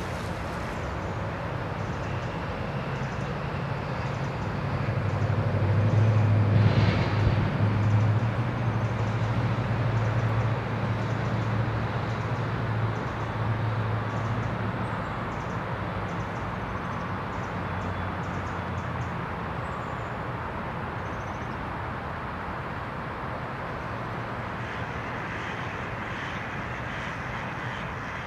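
Low engine hum of a passing vehicle that builds to its loudest about six to eight seconds in and then slowly fades, over a steady outdoor background hiss.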